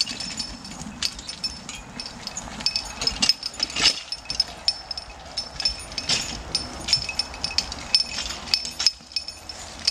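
Harness chains and a wheeled logging arch clinking and rattling as a draught horse drags a log through leaf litter: a run of short metallic clinks and knocks.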